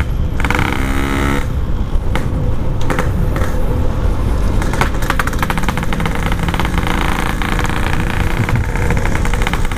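Two-stroke motorcycle running steadily at road speed, with heavy wind rush on the microphone. A brief pitched tone sounds in the first second.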